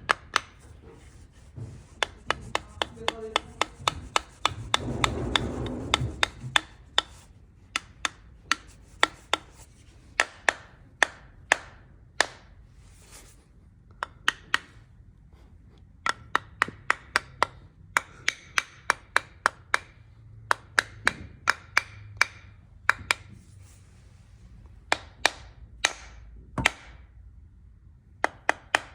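A small hammer tapping a Japanese hand plane (kanna) to set its blade: sharp taps in quick runs, a few a second. About four to six seconds in there is a longer scraping, rasping stretch.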